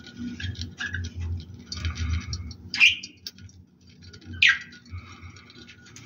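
Budgerigars chattering, with two loud, short calls, about three seconds in and again about a second and a half later.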